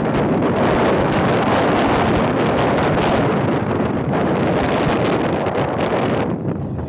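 Loud wind buffeting the microphone while riding on an open motorbike, with no clear engine note. It eases briefly near the end.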